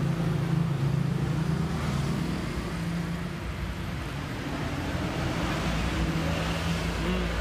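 Road traffic: a motor vehicle's engine running steadily, a low hum under general street noise.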